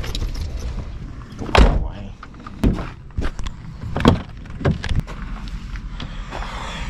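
Camper van doors being handled and pushed shut: four thumps, the loudest about a second and a half in.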